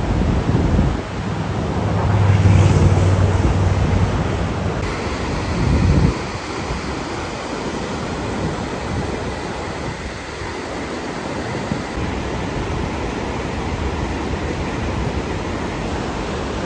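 Whitewater rapids of the Kern River at high snowmelt flow, rushing steadily over boulders. A heavier low rumble of wind on the microphone sits under the water for about the first six seconds and cuts off suddenly.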